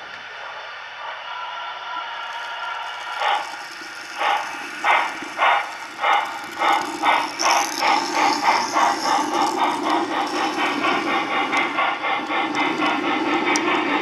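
Steam locomotive chuffing as it gets under way, most likely from a sound-equipped model locomotive. Slow single chuffs begin about three seconds in and quicken to several a second, over a steady hum.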